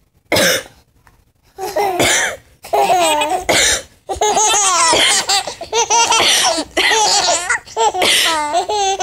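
A woman coughs once right at the start, then seven-month-old babies laugh in repeated high-pitched bursts, set off by the coughing.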